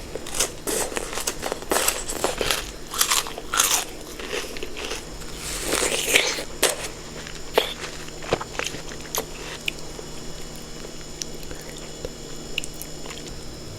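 Close-up crunching and chewing of a Hot Cheeto salad: dense, crisp bites and crunches through the first half, then sparser, softer chewing.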